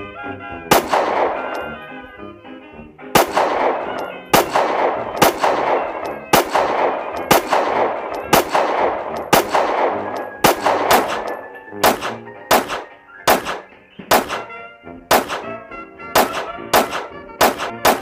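A long string of added pistol-shot sound effects over background music. The first shots fire about a second apart, each with a long echoing tail. From about two-thirds of the way in they come faster and shorter, nearly two a second.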